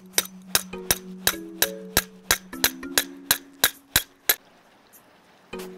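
Hammer tapping a metal maple sap spile into a drilled hole in the tree trunk: about a dozen sharp metallic taps, roughly three a second, stopping about four seconds in.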